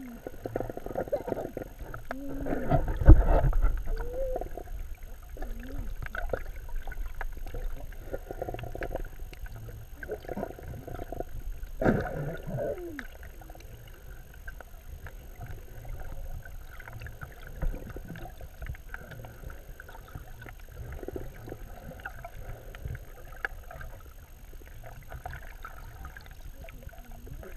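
Water sloshing and rushing against an underwater camera housing, heard muffled, with louder rushes about three seconds in and again around twelve seconds. A few short muffled gliding tones come in the first half.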